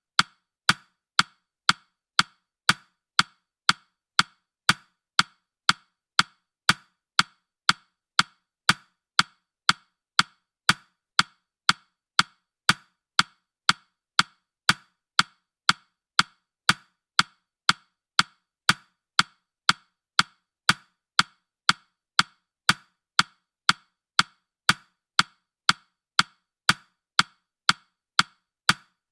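Countdown timer ticking: short, sharp, evenly spaced ticks, about two a second.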